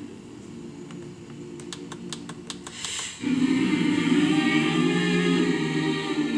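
A quick run of light clicks, then about three seconds in a choral symphonic metal song starts playing loudly through the iLuv Vibro II alarm clock dock's small speakers.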